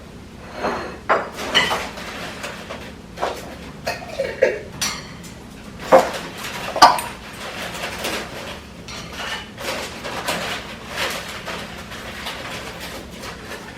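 Hard toys clattering and knocking as a young African grey parrot shakes, chews and drops them: an irregular run of sharp knocks and rattles, the two loudest about six and seven seconds in.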